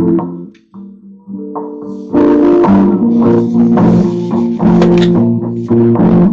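Music: an instrumental track with guitar and bass, where a drum kit comes in about two seconds in and the sound gets fuller and louder.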